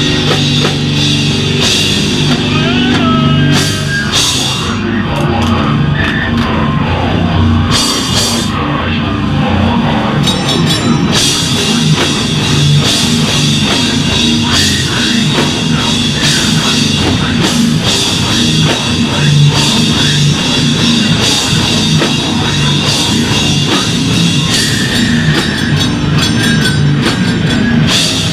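Beatdown hardcore band playing live and loud: heavy distorted guitar and bass over a pounding drum kit.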